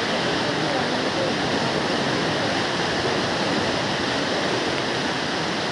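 Loud, steady rush of fast-flowing floodwater.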